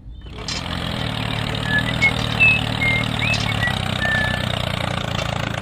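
Tractor engine running steadily at a low, even pitch, starting about half a second in. A few short high chirps sound over it.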